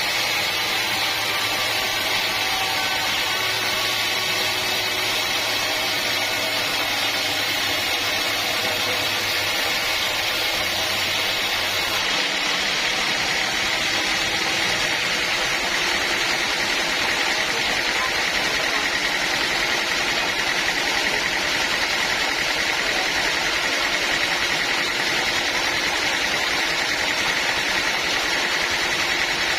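A sawmill running steadily: a constant mechanical drone with a high whine over it. About twelve seconds in, a low hum drops out and the sound shifts slightly.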